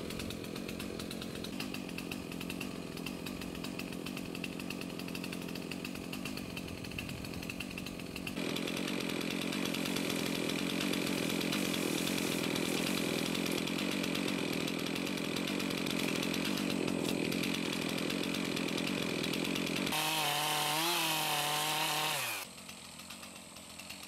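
Two-stroke chainsaw running, cutting fallen eucalyptus limbs, its steady engine note getting louder about eight seconds in. Near the end the engine note wavers, falls in pitch and stops, leaving a much quieter background.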